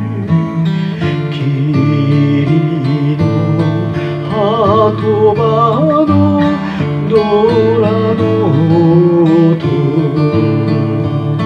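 A man singing a slow Japanese ballad with a wide vibrato on held notes, accompanied by a strummed steel-string acoustic guitar.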